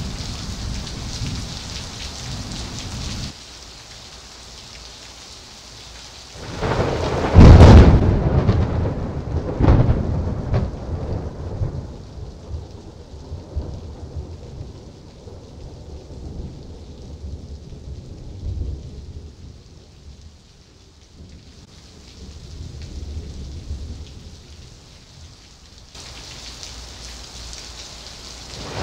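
Steady heavy rain, with a loud crash of close thunder from a cloud-to-ground lightning strike about seven seconds in. The thunder rumbles for several seconds and dies away, and another thunderclap breaks right at the end.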